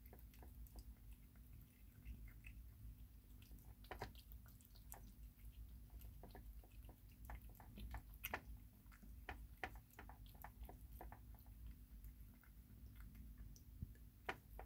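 Kitten eating chunks of wet cat food from a plastic bowl: faint, irregular wet smacks and clicks of chewing and licking, with a few louder ones.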